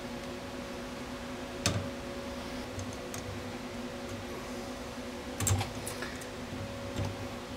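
Small metal screws clicking and tapping against an aluminium carriage clamp as they are set in and started by hand, a few scattered clicks with a small cluster near the middle, over a steady low hum.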